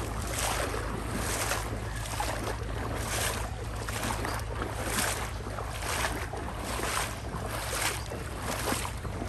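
Floodwater splashing in a steady rhythm, about one splash a second, over a low steady hum.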